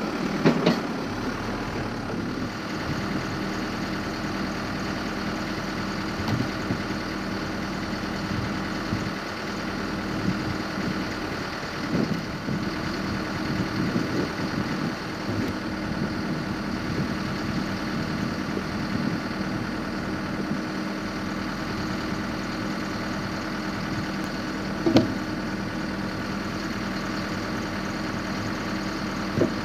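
Backhoe engine running steadily, with a few brief sharp knocks from the log-splitting work.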